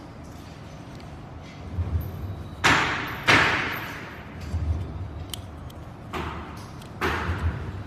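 A series of sharp knocks, four in all and about a second or more apart, each dying away with a short hissy tail, with low rumbling handling noise between them.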